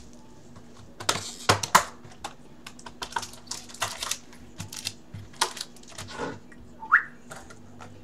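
Irregular clicks, taps and crinkles of a cardboard card box being opened and foil-wrapped trading-card packs being handled and set down on a table, with one short rising squeak about seven seconds in.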